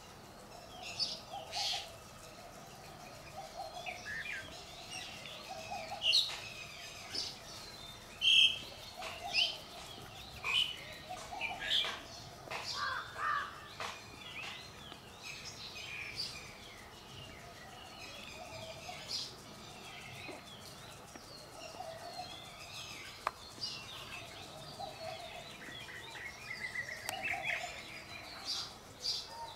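Wild birds chirping all around, short high calls scattered throughout, with a lower call repeated every few seconds.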